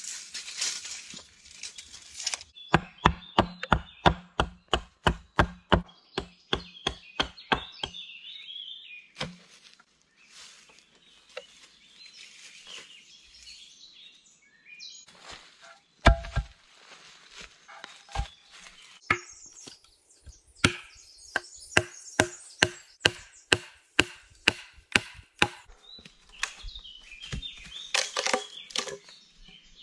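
A hand tool striking wood in rapid runs of blows, about two or three a second, each blow with a short ringing tone. Two long runs are separated by a quieter pause and one heavier single blow.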